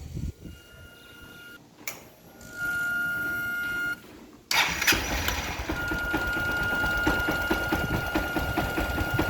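Honda Bros 160 motorcycle engine running, with a steady high-pitched whine from the fuel injection system that the mechanic traces to a faulty fuel pressure regulator. The first seconds are quieter short pieces with the same whine; the engine sound is much louder from about four and a half seconds in.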